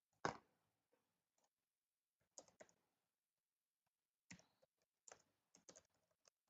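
Faint computer keyboard typing: scattered keystrokes in small clusters, with one sharper click about a quarter of a second in.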